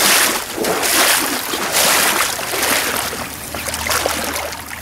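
Stream water rushing and splashing close by, a loud, even noise that swells and falls in surges about once a second.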